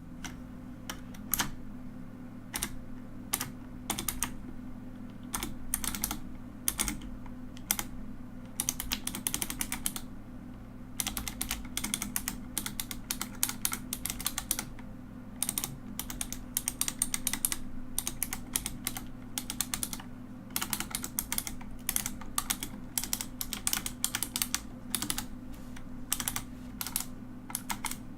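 Mechanical keyboard being typed on, its keys clacking in irregular runs, some fast and dense, with brief pauses between them. A low steady hum lies underneath.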